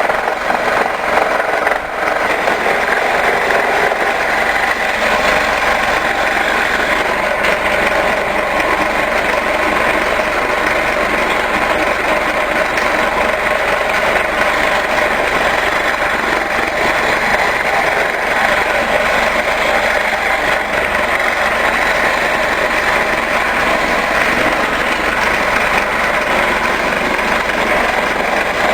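A power tool running steadily under load, with a brief dip in loudness about two seconds in.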